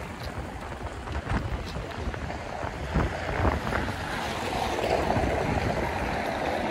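Wind buffeting the microphone: a low, gusty rumble. A steadier hum swells in about two-thirds of the way through.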